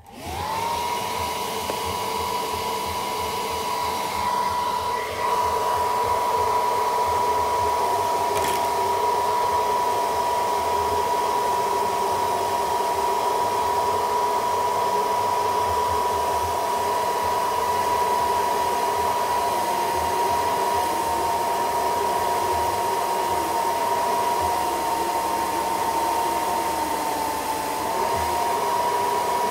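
Handheld hot-air blower (hair-dryer type) running steadily: rushing air with a high motor whine, blowing on the phone's back glass to soften the adhesive so the glass can be lifted. It spins up in the first second and dips slightly in pitch near the end.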